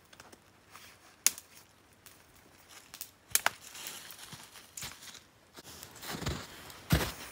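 A few scattered sharp clicks and crackles, then from about six seconds in a run of crunching footsteps in snow.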